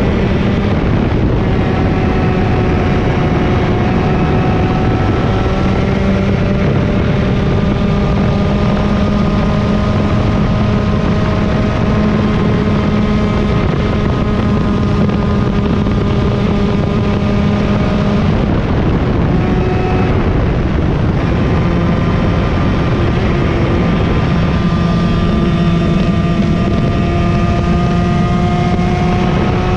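Yamaha KT100 two-stroke single-cylinder kart engine running at racing speed, its pitch climbing slowly through a long pull, dropping sharply about eighteen seconds in, then climbing again.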